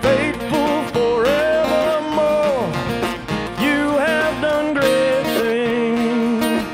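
Live rock band playing: electric and acoustic guitars, electric bass and drum kit, with a melody line that glides between long held notes.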